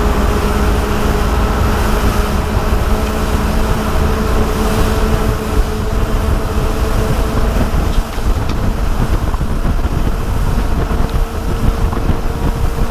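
Engines of a Bayliner 3055 cruiser running steadily under way, a low drone with wind buffeting the microphone.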